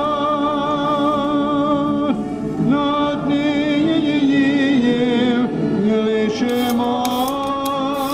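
Background music: a slow melody of long held, wavering sung notes, with short crisp hits joining about six and a half seconds in.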